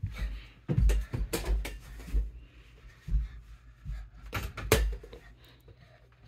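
Knocks and thumps of a small ball hitting a mini basketball hoop and bouncing on a wooden floor, several in a row, the loudest about a second in and again near the end, with a child's footsteps on the floor.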